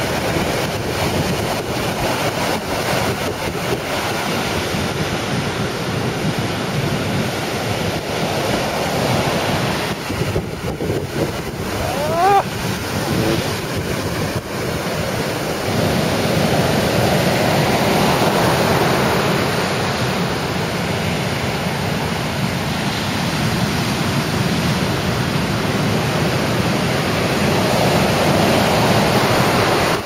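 Heavy ocean surf breaking and washing up a sandy beach in a continuous rushing roar that swells as bigger waves come in, with wind on the microphone. About twelve seconds in, a single brief high cry rises and falls in pitch above the surf.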